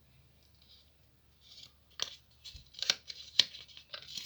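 A small folded slip of paper being picked out and unfolded: a few short, crisp paper rustles and crackles that start about a second and a half in.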